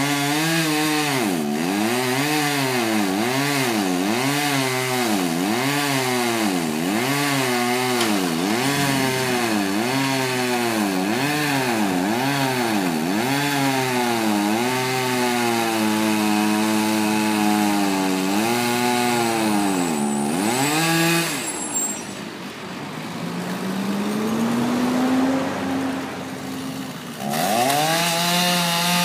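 Chainsaw cutting into a large hardwood trunk. The engine pitch dips under load and recovers about once a second as the bar works through the wood, then holds steadier. About two-thirds through it drops to a low idle, and it revs back up near the end.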